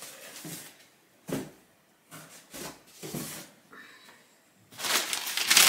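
A few light knocks and rustles of handling, then about a second before the end loud crinkling of packing paper being handled.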